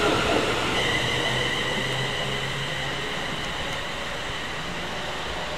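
Class 350 Desiro electric multiple unit moving away along the track, its rumble and a steady high whine fading as it recedes.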